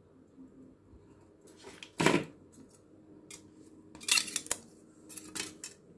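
Tabletop handling of craft pieces, cut drink-can metal and a beaded wire body, giving scattered small clinks and clicks. There is one louder knock about two seconds in and a cluster of clinks around four seconds.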